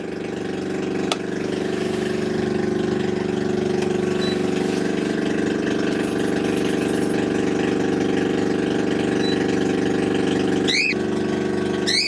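Generator engine running with no exhaust fitted, a steady hum at an even pitch. There is a click about a second in and a short high rising chirp near the end.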